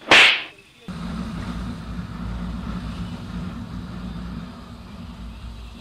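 A brief loud hissing burst, then a moment later a steady low engine rumble cuts in suddenly and runs on, the sound of a motorcycle being ridden.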